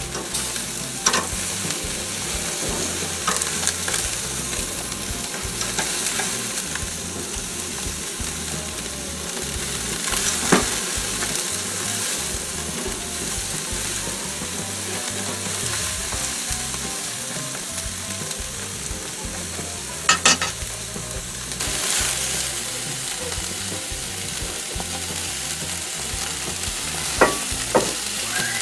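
Chicken and vegetable skewers sizzling steadily on a barbecue grill, with a few sharp clicks of metal tongs against the skewers and grate as they are turned.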